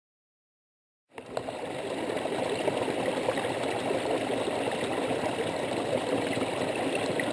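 Mountain-valley stream, a steady rush of flowing water that cuts in suddenly about a second in after total silence.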